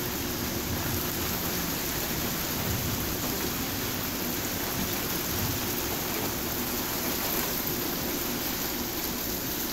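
Steady rain falling, an even hiss with no single loud event.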